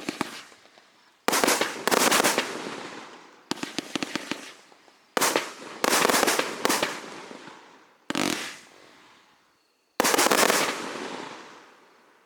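108-shot fireworks cake firing in volleys: five bursts of rapid, sharp crackling pops, each dying away before the next, the last fading out near the end.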